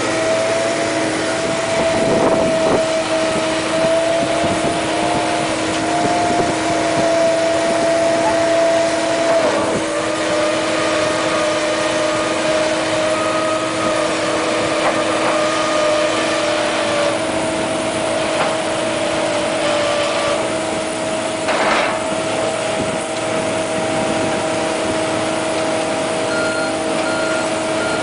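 Casagrande rotary piling rigs running, their engines and hydraulics making a steady drone with a steady high whine. A single sharp knock comes about two-thirds of the way through, and short repeated beeps start near the end.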